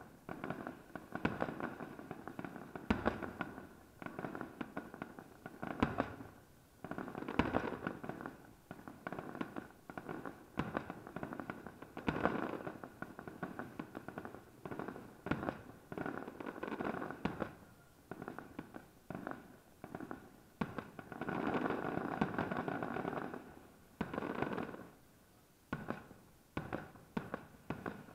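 Aerial fireworks shells bursting overhead one after another at an uneven pace: sharp bangs and booms with crackling between them. About three quarters of the way through, a longer run of dense crackling lasts a couple of seconds.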